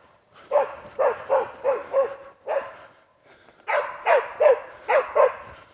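Blue Heeler barking in two quick runs, about three barks a second, with a short pause between them: a hog dog baying a pig, holding it at bay.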